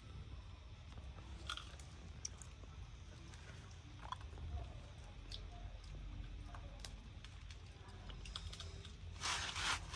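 Faint chewing and biting on food, with scattered crunching clicks and a louder crunchy rustle near the end.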